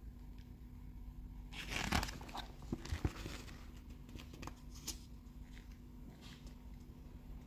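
Glossy catalogue page being turned: a short paper rustle about two seconds in, followed by a few light crinkles and taps as the pages are handled.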